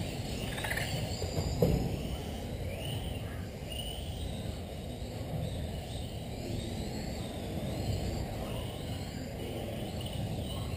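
Electric RC touring cars racing on a carpet track: a thin high motor whine rises and falls as the cars accelerate and slow, over a steady low rumble. One short knock sounds just under two seconds in.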